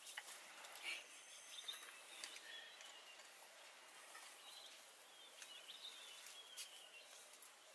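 Quiet bush ambience with faint, scattered bird chirps and a few soft clicks and rustles.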